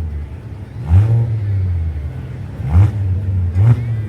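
Demolition derby car engines idling, with quick throttle blips that sweep up in pitch about a second in, near three seconds and again near the end, while the cars stand still.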